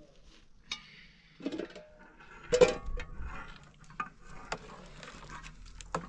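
Metal cookware clanking: a pot lid and ladle knocking against a metal cooking pot several times, the loudest a ringing clang about two and a half seconds in.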